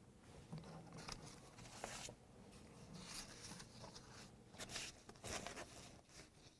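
Paper sheets being handled and shuffled at a lectern: a few short, faint rustles.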